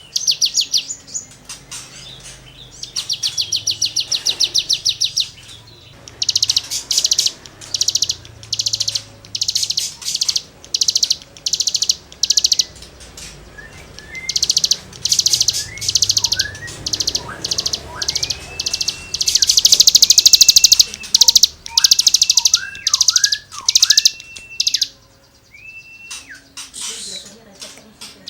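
Cigun songbird singing at full volume: repeated bursts of rapid, scratchy buzzing trills ('gesekan'). From about halfway through these are mixed with short upslurred whistles.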